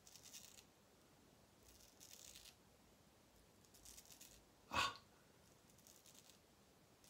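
Straight razor scraping through lathered stubble on the neck in four short, faint strokes about two seconds apart. A brief sharp click comes a little under five seconds in.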